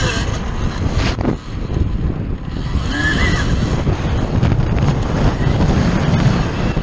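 Wind buffeting the microphone of a camera on an Alta Redshift MX electric dirt bike riding a rutted motocross track, mixed with a steady low rumble from the tyres and chassis over the dirt. Loudness dips briefly a little over a second in.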